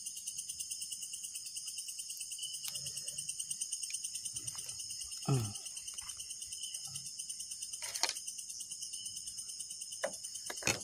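Crickets chirping steadily in a fast, even pulse, about seven chirps a second. Brief handling knocks break in, with a short falling squeak about five seconds in and clicks later on.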